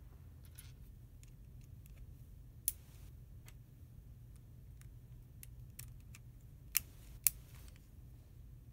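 Plastic building-kit beams and pins being handled and pressed together: a few sharp clicks, a loud one about two and a half seconds in and two close together near the end, with fainter ticks between, over a faint steady low hum.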